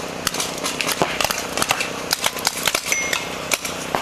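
Reball markers, air-powered paintball-type guns firing reusable balls, shooting from several players across the field: a stream of sharp pops, several a second at uneven intervals. A short high beep sounds about three seconds in.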